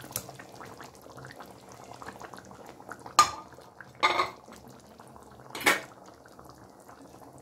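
Egg curry simmering in a steel kadai with a faint bubbling crackle. Between about three and six seconds in come three sharp metal clinks of a utensil against the pan, the loudest sounds here.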